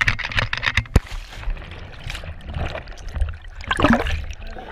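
A person plunging into the sea from rocks: a sharp splash about a second in, then churning water and bubbling heard with the camera under the surface.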